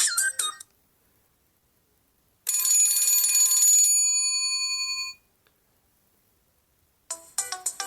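Alcatel OT-808 mobile phone ringtones playing. A quick tune of short notes cuts off just after the start. About two and a half seconds in, a single held bell-like chime of several steady pitches sounds and fades out over roughly two and a half seconds. Near the end, another fast ringtone of quick notes begins.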